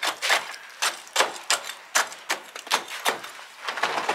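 Rapid sharp knocks, about two to three a second, from a tool working freshly poured concrete into wooden lintel formwork to pack it down. Near the end the knocks give way to a rougher, continuous scraping noise.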